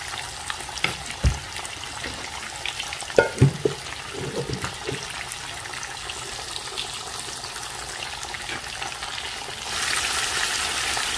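Fish pieces frying in hot oil in a pan: a steady sizzle, with a few knocks about one and three seconds in. The sizzle grows louder near the end as a wooden spatula turns the fish.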